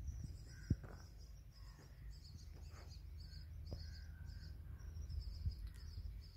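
Outdoor ambience: high chirping repeating throughout, with a few bird calls and a low wind-like rumble. A sharp click comes about 0.7 s in.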